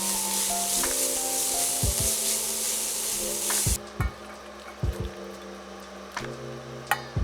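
Finely chopped carrot, zucchini and shiitake mushroom sizzling as they are stir-fried in hot oil. The sizzle cuts off suddenly a little under four seconds in.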